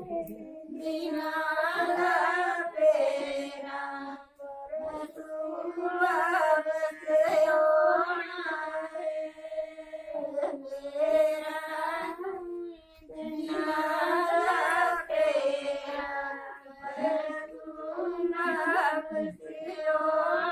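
Women singing a Himachali folk wedding song without instruments, in long drawn-out phrases broken by short pauses.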